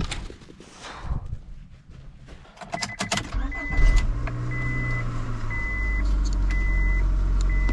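1999 Honda Accord engine: clicks of the key, then the engine cranks and catches about four seconds in and settles into a steady idle, with a dashboard chime beeping about once a second. The engine still has a cylinder 3 misfire.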